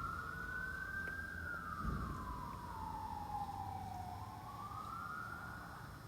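Emergency vehicle siren in a slow wail: the pitch rises, falls slowly for about three seconds, then rises again and fades near the end. A brief low rumble comes about two seconds in.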